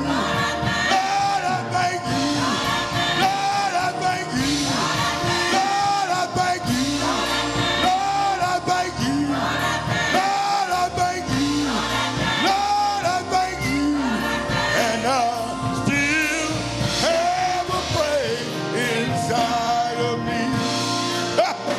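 Gospel choir singing with the church band, a short melodic phrase repeating about once a second.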